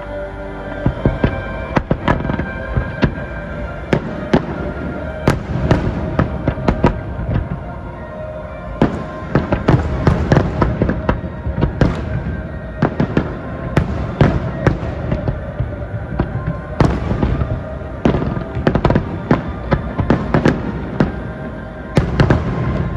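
Aerial fireworks display: a rapid, irregular series of sharp bangs and crackles from bursting shells, thickest about nine to twelve seconds in and again near seventeen to twenty-one seconds, with music playing underneath.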